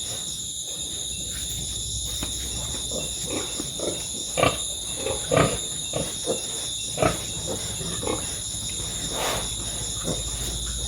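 Piglets grunting in short, irregular bursts, loudest around the middle, over a steady high-pitched chorus of crickets.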